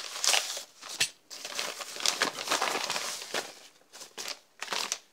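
Yellow padded bubble mailers being handled and opened: irregular crinkling and rustling of the paper-and-bubble envelopes, with one sharp click about a second in.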